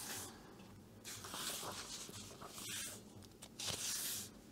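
Paper pages of a paperback coloring book turned by hand: several soft rustles and slides of paper, with a brief tick about two and a half seconds in.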